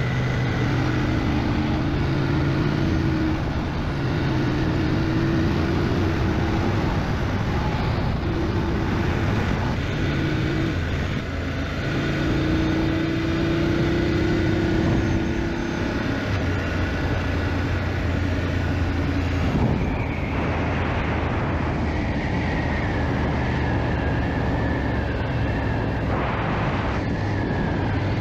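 BMW GS motorcycle engine running steadily under way, with the rush of wind and road noise; the engine pitch shifts a few times as the speed changes.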